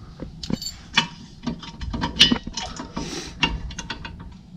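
Rear parking brake shoes and their springs clicking and rattling against the hub and backing plate as they are worked loose by hand: a quick, irregular run of small metallic clicks.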